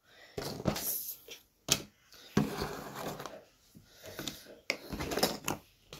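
Cardboard jigsaw puzzle pieces being picked up, shuffled and set down on a table: scattered light taps and clicks with soft rustling between them.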